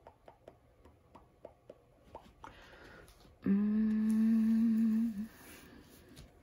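A woman hums one steady 'hmm' for about a second and a half, near the middle. Before it come light clicks of fingernails tapping the plastic film over a diamond-painting canvas, a few a second.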